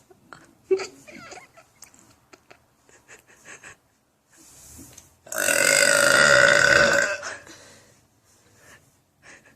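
A girl lets out one long, loud burp about five seconds in, lasting about two seconds at a fairly steady pitch.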